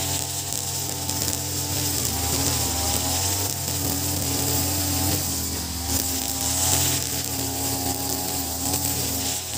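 Ogawa BG330 33cc two-stroke brush cutter running at high revs, its 2.4 mm square nylon line whipping through grass. The engine note holds steady, dipping and rising slightly as the line meets the grass.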